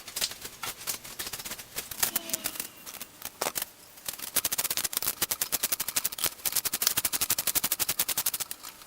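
Scattered metal clinks, then a ratchet wrench clicking fast and evenly from about four seconds in as the pipe vise's mounting bolts are backed out.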